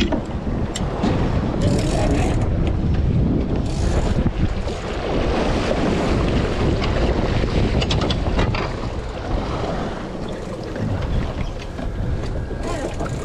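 Wind buffeting the microphone over water washing and slapping against a small boat's hull, with a few light knocks and clicks scattered through.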